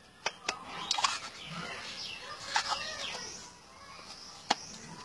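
Sharp clicks and knocks of wood on wood as the panels of a carved wooden hidden-compartment box are slid and handled, a cluster near the start and a single click near the end, with high chirping in the background.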